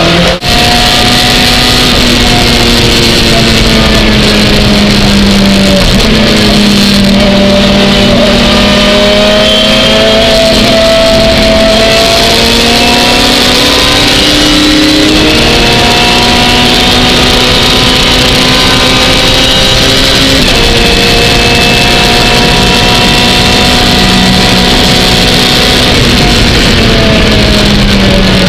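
Lotus Exige GT3 race car engine heard from inside the cockpit under racing load, its pitch climbing slowly through each gear and dropping sharply at each gear change, several times, over a steady wash of road and spray noise.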